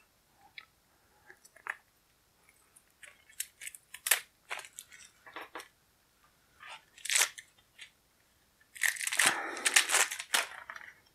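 Plastic shrink wrap being torn and peeled off a deck of cards: scattered crackles and a few sharp crinkles, then a dense stretch of crinkling near the end.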